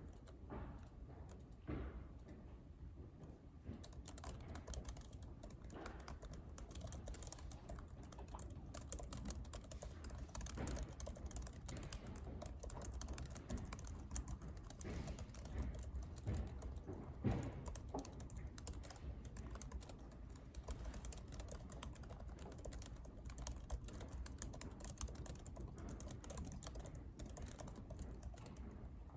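Computer keyboard being typed on: a steady run of quick keystrokes, sparser in the first few seconds, with one louder tap past halfway, over a low room hum.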